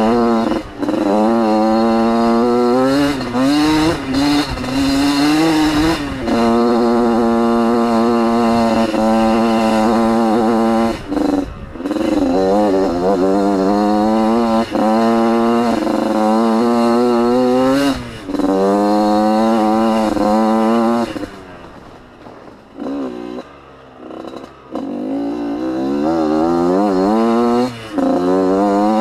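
Dirt bike engine revving hard through the gears, its pitch climbing and then dropping back at each shift, several times over. About three quarters of the way through it eases off and runs quieter for a few seconds, then pulls hard again.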